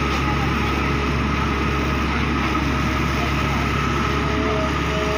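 Tata Hitachi hydraulic excavator's diesel engine running steadily under load as the bucket digs into soil, with a steady high whine over the engine drone.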